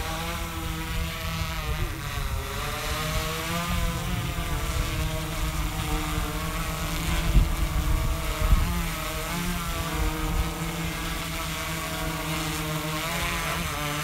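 Multirotor drone's propellers whirring in flight, several tones whose pitch rises and falls together as the drone manoeuvres during a short test hop.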